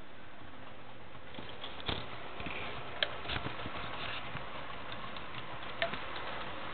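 HO scale model train, a diesel locomotive pulling freight cars, running on the layout's track: a steady hiss with scattered sharp clicks and ticks from the wheels on the rails.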